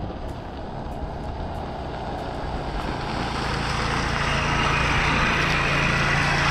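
Engine of an approaching vehicle, growing steadily louder from about halfway through until it holds a steady hum near the end.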